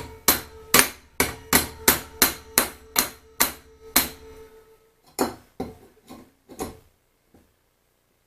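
Hammer striking steel on the vise: about ten quick, sharp blows, each ringing briefly with a metallic tone, then four lighter taps a second later.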